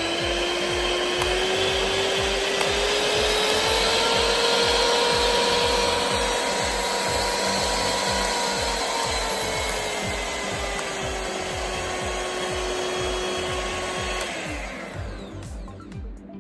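Farfalla FFM-6503B2 hand mixer's motor running with its beaters spinning freely, a steady whine. The pitch climbs slightly over the first few seconds, sinks slowly as the speed slider is moved down, and the motor stops about fourteen seconds in. Background music with a steady beat plays faintly underneath.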